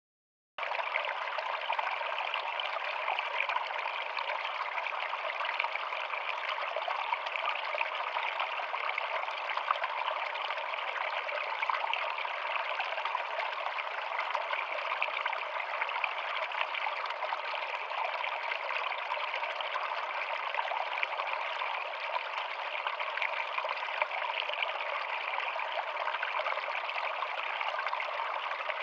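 Shallow stream running and splashing over rocks in a small cascade, a steady water sound that starts abruptly about half a second in.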